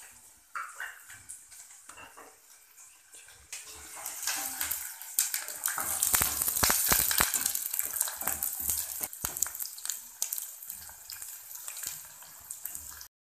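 Chopped onions dropped into hot oil in a steel saucepan, bursting into a loud sizzle with spattering crackles about four to five seconds in, then easing to a softer sizzle as they are stirred with a spatula.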